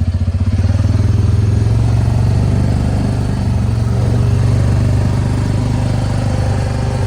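Honda Pioneer 700-4 side-by-side's single-cylinder engine running, with an even throb at first that smooths into a steadier, slightly louder drone about half a second in as it picks up.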